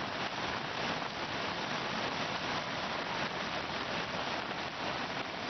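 Flood-swollen stream, muddy water rushing and churning over a concrete channel in a steady, even rush.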